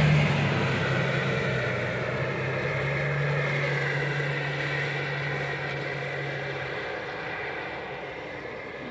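A motor vehicle's engine drone fading away as it drives off along the wet road, over a steady hiss of rain and wet road noise.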